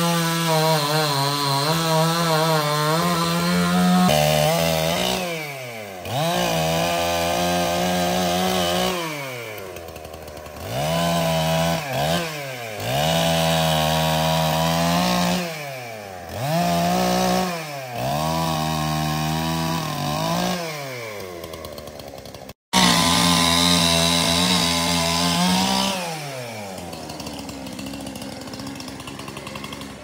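Two-stroke chainsaw cutting jackfruit wood, its engine revving high under the cut and repeatedly dropping back and rising again. Near the end it runs lower and steadier, as at idle.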